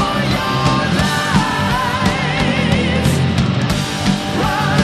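Loud heavy rock music: a full band with a wavering lead melody over a steady drum beat.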